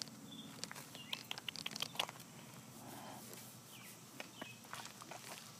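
Donkey cropping and chewing grass close by: a rapid series of crisp tearing and crunching clicks, busiest one to two seconds in.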